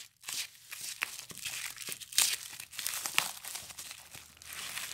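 Bubble wrap and tape crinkling and tearing as a folding knife slits open a wrapped package, with irregular crackles and small sharp snaps.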